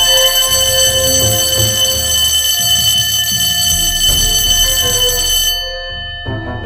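An alarm bell ringing steadily, which stops abruptly about five and a half seconds in.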